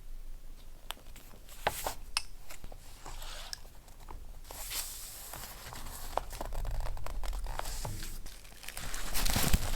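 Paper being handled close up: scattered light taps and crackles, then a steady rustling hiss of paper sliding, and louder crinkling near the end.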